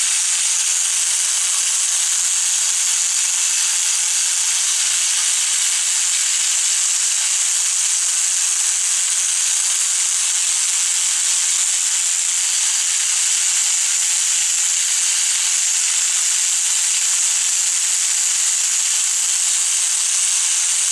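Steady hiss of an air jet from a nozzle blowing over a wet glass radio valve, drying it after cleaning.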